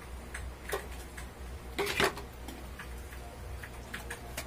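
Light clicks and taps of small parts being handled, with a louder clatter about two seconds in, while a desk electric fan motor is being assembled.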